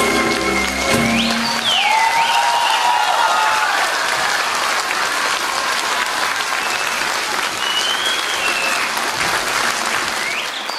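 The final held chord of an ocarina and ukulele orchestra dies away about a second in. Sustained audience applause follows, with a few cheers.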